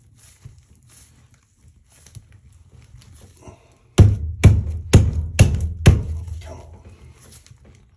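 White plastic toilet repair flange being struck down into the drain pipe by hand: five heavy thumps about half a second apart, starting about halfway through, after faint rubbing and scraping.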